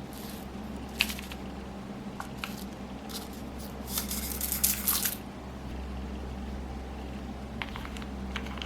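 Slime being squished and mixed, giving scattered wet pops and crackles, with a busier run of squelching crackles about four to five seconds in, over a steady low hum.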